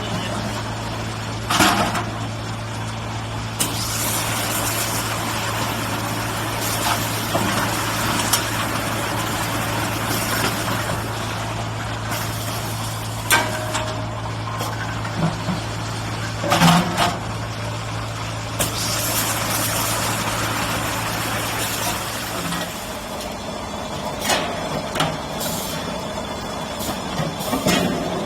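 5-gallon bottle washing machine running: a steady motor hum under a continuous hiss of spray or air, with a few sharp clanks. The hum stops about three quarters of the way through.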